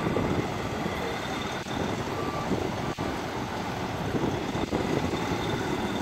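Heavy construction machinery diesel engines running steadily, with a brief faint beep about two and a half seconds in and a few faint knocks.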